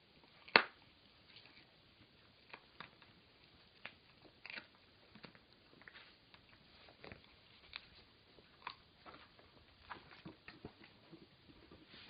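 Dogs gnawing on hard dried chews: a seven-week-old puppy and an adult dog, giving irregular clicks and crunches of teeth on the chew. One sharp click about half a second in is much louder than the rest.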